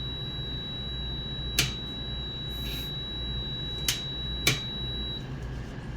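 Multimeter continuity buzzer giving a steady high beep, showing continuity through the boiler's switch, with three sharp clicks; the beep cuts off suddenly near the end.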